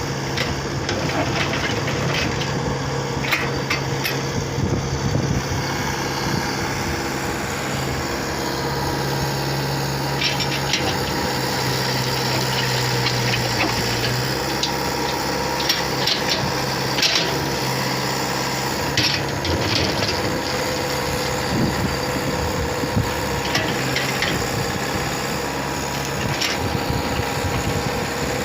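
Heavy earth-moving machine's engine running steadily, with scattered knocks and clanks over it.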